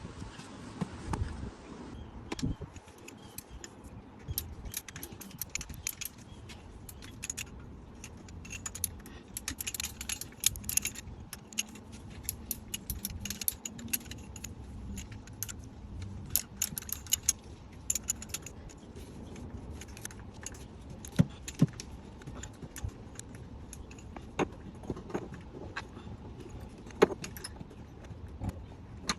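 Small metal objects handled over and over, with irregular light metallic clicks and jingles. They come thickest about ten seconds in and again around seventeen seconds, with a few sharper single clicks near the end.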